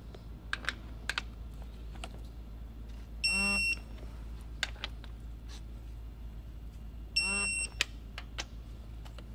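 Electronic digital torque wrench beeping twice, each beep about half a second long, signalling that the rocker-arm bolt has reached its 20 ft-lb target torque. A few light ratchet clicks come between the beeps.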